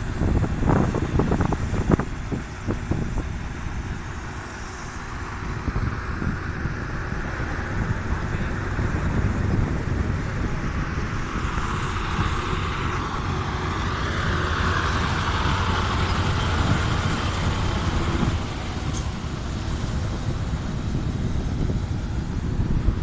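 Diesel engines of vacuum tanker trucks running steadily with a low rumble, with a few knocks in the first two seconds and a hiss that swells in the middle and drops away about three quarters of the way through.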